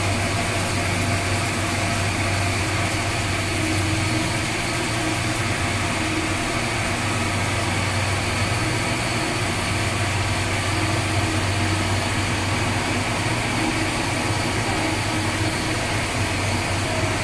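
Steady, loud machinery noise of a tugboat engine room: running machinery and ventilation blowers, with a deep steady hum underneath.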